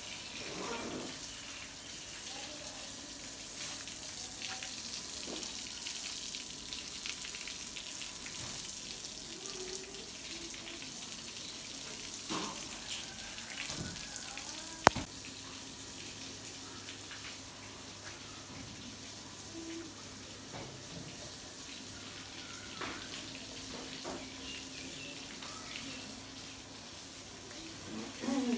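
Steady hiss of running water, with a single sharp click about halfway through.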